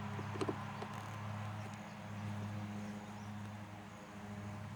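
A few faint clicks of a Phillips screwdriver working the screws out of a plastic shore power hatch, over a steady low hum.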